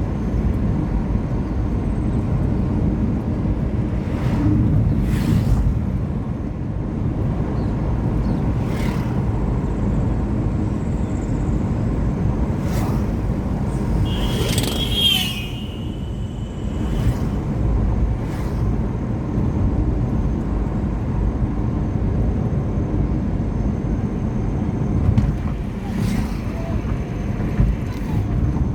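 Steady low rumble of a car driving along a road, with occasional sharp knocks and rattles and a brief high-pitched tone about halfway through.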